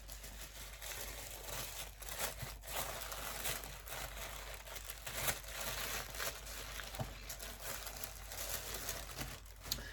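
Hands unwrapping a small wrapped package: irregular crinkling and rustling of the wrapping, with scattered light clicks.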